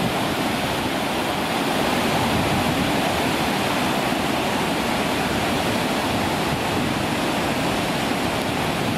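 Floodwater pouring through a dam's open spillway gates and churning downstream: a steady rushing of water.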